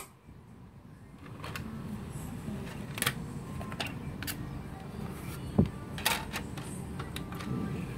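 Music cuts off at the start, then the Denon UD-M3 CD receiver's disc tray works: a low mechanical hum with a string of small clicks as the drawer is opened and handled. The loudest sound is a single thump a little past halfway, with more clicks and a brief hum near the end as the tray goes back in.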